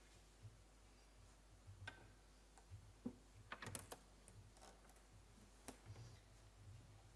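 Near silence: church room tone with a few faint scattered clicks and knocks, most of them about three and a half seconds in.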